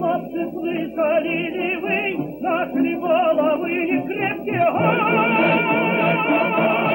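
Music with a singing voice that wavers in vibrato; a long held note begins about two-thirds of the way in.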